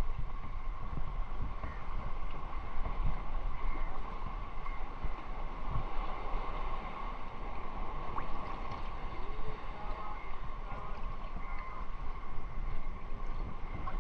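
Shallow sea water lapping and sloshing around a camera at the water's surface, with wind buffeting the microphone in a steady low rumble.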